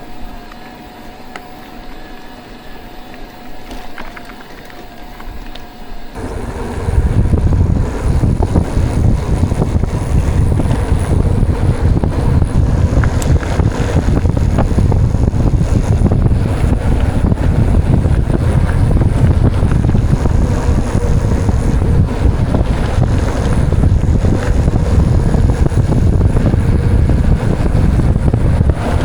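Riding a mountain bike over a rough track: a faint steady whine and a few clicks at first. About six seconds in, loud wind buffeting on the microphone and tyre and gravel rattle take over as the bike picks up speed, and keep on steadily.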